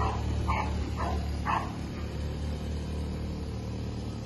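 A dog barking four times in the first second and a half, about two barks a second, over the steady low drone of a 200cc ATV engine running.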